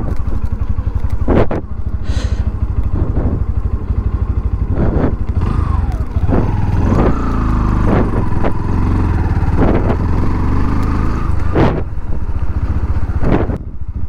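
Single-cylinder engine of a Bajaj Pulsar 160 motorcycle running at low speed on a broken, potholed road, heard from the rider's helmet, with scattered short knocks and thumps. A wavering whine rises and falls for several seconds in the middle.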